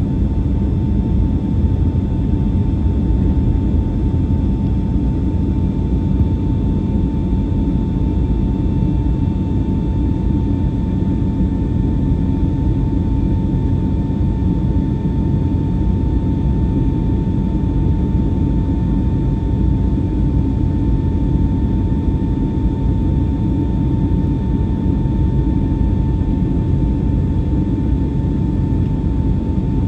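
Cabin noise of an Airbus A321-200 airliner climbing after takeoff: a steady jet-engine and airflow rumble with a constant whine above it.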